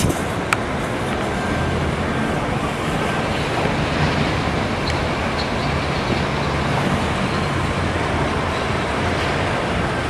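Steady background noise with a low hum, like road traffic or a running engine, and a single click about half a second in.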